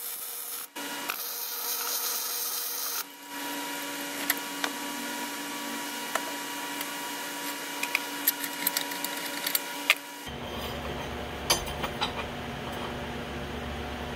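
Lincoln 125 MIG welder's arc crackling for about three seconds as it welds steel. Then a steady hum follows, with scattered sharp clicks and taps of metal parts being handled on a steel vise.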